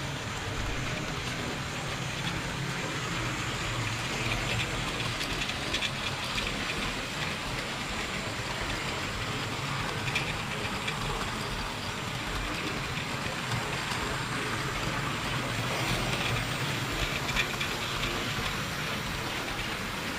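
Model train running round its track, heard from a camera riding on one of its wagons: a steady rumble and whir of wheels on rail and motor, with occasional faint clicks.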